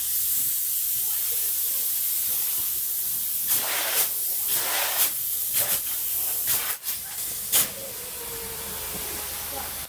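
Spray foam insulation gun spraying foam with a steady high hiss, and several short, louder hisses between about three and a half and eight seconds in.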